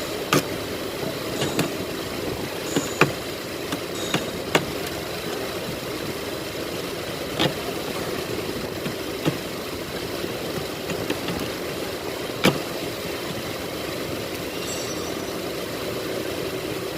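Scattered sharp single clicks of hand tools, about seven in all, as spark plugs are fitted into a Hyundai Azera's V6, over a steady engine-like drone.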